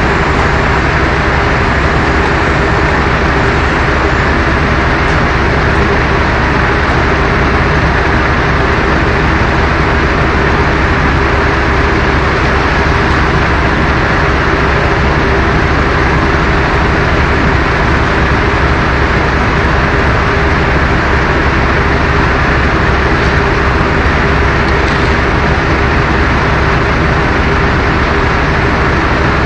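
Steady, loud engine-like machine noise with a constant low hum, unchanging throughout.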